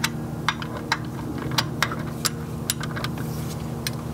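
Socket ratchet wrench clicking in a few scattered strokes as a bolt is tightened, over a steady low hum.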